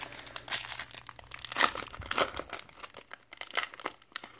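Hands handling trading cards and the crinkly foil wrapper of an unopened card pack, a dense run of crackling and small clicks that thins out near the end.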